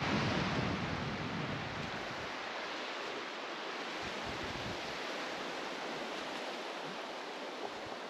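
Steady hiss of surf and wind on an open beach, a little louder in the first second, then even.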